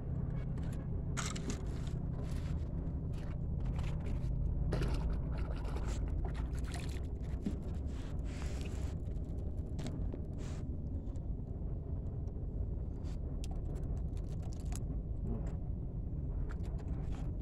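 Steady low rumble with scattered light clicks and scrapes.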